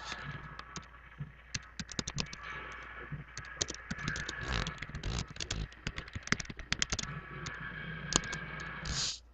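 Typing on a computer keyboard: quick, irregular key clicks in bursts as a short line of text is typed, ending abruptly near the end.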